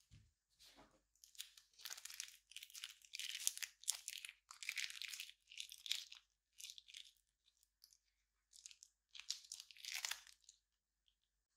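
Clear slime being squeezed out of a plastic piping bag: the bag crinkles and the slime crackles in a run of short bursts, stopping about ten and a half seconds in.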